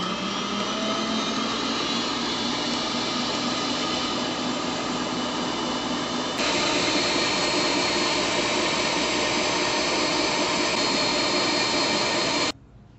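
Philco stand mixer running, its wire balloon whisk beating eggs and sugar in the steel bowl until they double in volume for a sponge cake. The mixer gets louder about halfway through and cuts off suddenly near the end.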